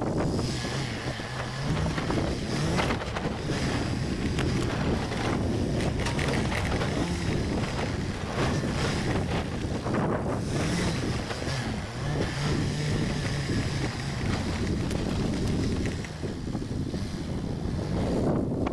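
Vehicle engine running as it drives along a rough track, with wind buffeting the microphone.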